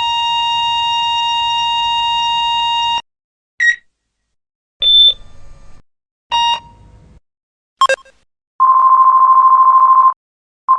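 A series of separate electronic beeps. It opens with one long steady beep of about three seconds, then several short beeps at different pitches follow one by one. Near the end comes a warbling, buzzy tone of about a second and a half.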